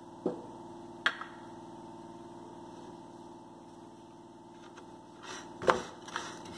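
Spatula stirring groundnuts, sesame seeds and dry coconut powder in a dry pan, with a couple of light knocks early on and a run of short scraping strokes near the end, over a steady hum.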